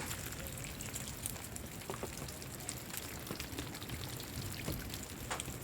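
Heavy rain falling with hail: a steady hiss of rain with scattered sharp ticks of drops and hailstones striking.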